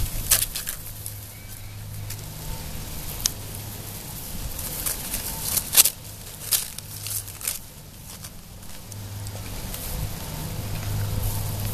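Dry straw crackling and rustling with sharp snaps as puppies trot over it, over a steady low hum. The snaps come most thickly in the middle.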